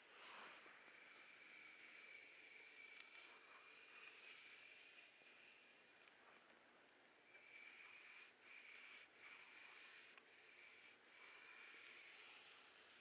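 Quiet rubbing and brushing strokes of a hands-on ASMR massage: a soft, hissy scratching that comes and goes, with short breaks in the second half.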